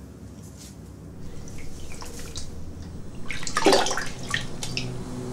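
Water running and splashing in a bathroom, with drips. It starts with scattered splashes and comes to a louder gush about three and a half seconds in.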